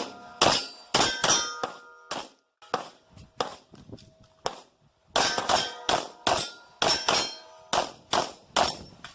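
Rapid pistol fire striking steel targets, each hit ringing out with a metallic clang. About seven hits come first, then a pause of about a second and a half, then about ten more in quick succession.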